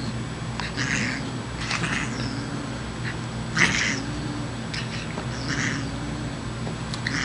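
Siamese cat making a drawn-out, wavering low growl-yowl with short hisses breaking in about once a second. It is play-growling and hissing at a toy, not real anger.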